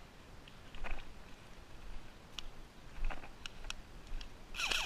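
Footsteps crunching through dry bracken and twigs, with scattered snaps and crackles and pine branches brushing past. There is a louder rustle near the end.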